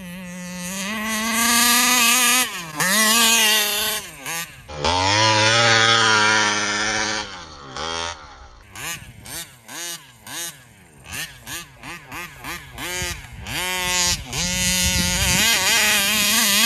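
Taylor 35cc reed-valve two-stroke engine in an RC car running at high revs, its pitch rising and falling over and over, with a run of quick dips in the middle. The engine keeps fluttering even on steady throttle, which the owner blames on a fault in the carburetor such as a plugged venturi.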